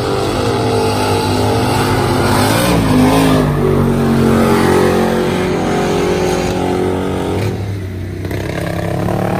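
Mud-racing car engine running hard at high revs as it races through the mud. Its pitch climbs and it is loudest about three seconds in, as it passes close with a hiss of spraying mud. It eases off briefly near the end, then picks up again.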